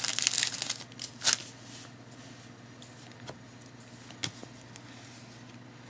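Foil trading-card pack wrapper crinkling as it is torn open, then a few light clicks as the cards are handled, over a faint steady low hum.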